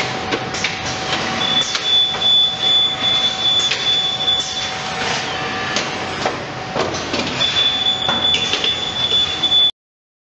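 Automated bakery line running: chain conveyors and tray handlers moving trays of dough, with a steady hum, scattered clicks and knocks, and a high thin whine that comes in about a second and a half in and again near the end. The sound cuts off suddenly shortly before the end.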